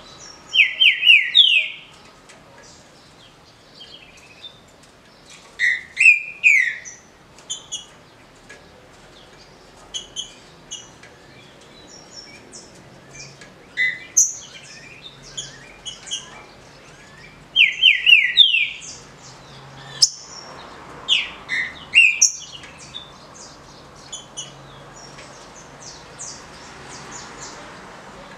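Green-winged saltator (trinca-ferro) singing its short whistled song: about five brief bouts of quick, sharp notes several seconds apart, the loudest near the start and again about two-thirds of the way in, with fainter high chirps between the bouts.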